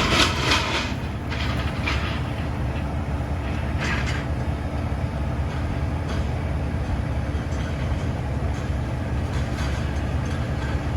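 A vehicle engine running steadily, with a few short knocks or rattles near the start and about four seconds in.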